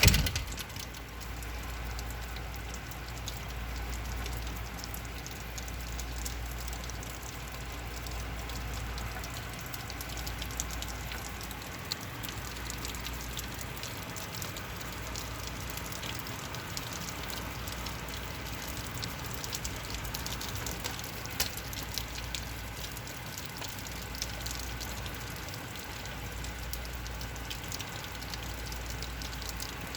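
Heavy rain falling steadily, heard through a door, with many fine ticks of individual drops in the steady hiss.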